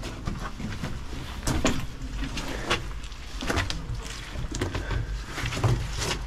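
Footsteps crunching and scuffing over loose stones and dry leaves on a cave floor, with clothes rustling. The crunches come irregularly over a steady low rumble.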